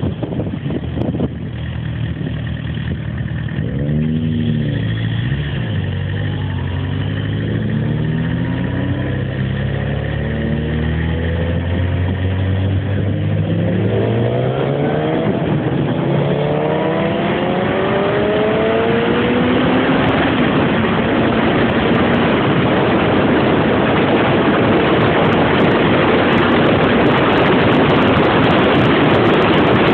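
Motorcycle engine accelerating through the gears, its pitch rising and dropping back at each shift. Wind noise on the microphone grows louder with speed until it covers the engine in the last ten seconds.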